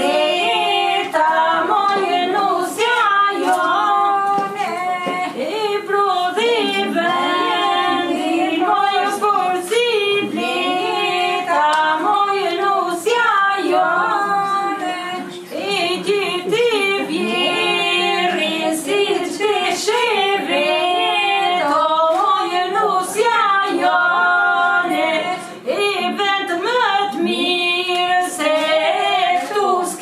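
Women's voices singing a song together without instruments, the melody running on with only short breaks between phrases.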